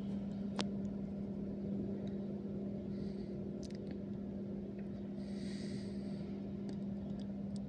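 Steady low machine hum with background rumble, and a few faint clicks.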